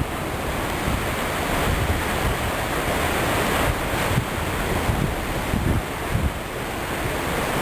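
Steady rush of Vernal Fall's falling water and spray, with gusts of wind buffeting the microphone.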